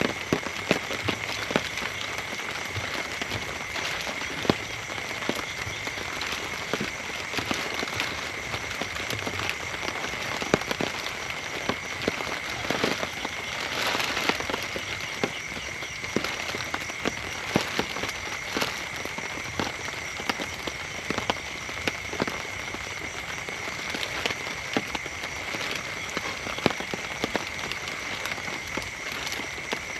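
Heavy rain falling steadily, with many separate drops tapping sharply, over a continuous high-pitched drone.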